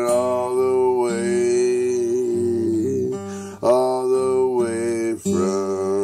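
A man singing a gospel song in long held notes, sliding between pitches, over a strummed acoustic guitar.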